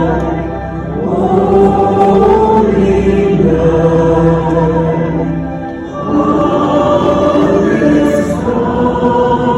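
Live Christmas music from a concert band with a crowd of voices singing along in long held notes, dipping briefly between phrases about a second in and again near six seconds.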